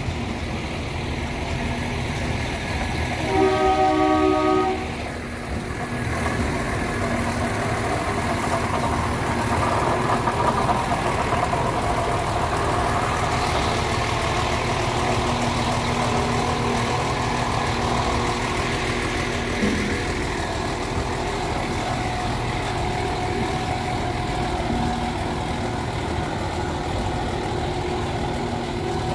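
Irish Rail 22000 Class diesel multiple unit passing slowly at close range, its underfloor diesel engines running and wheels rolling on the rails. A train horn sounds once, about a second and a half long, about three seconds in.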